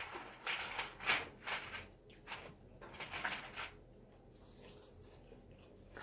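Close-up eating sounds: a run of irregular short chewing bursts, about two a second, that fades out after three or four seconds.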